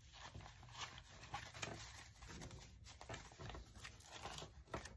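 Faint rustling of paper banknotes being handled and pulled from a stack, with a couple of light taps, one near the end.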